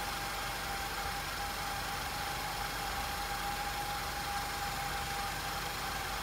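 Audi 2.0 TFSI direct-injection engine idling steadily, with a constant high whine over it. The scanner logs an intake air leak and a lean mixture at idle for this engine.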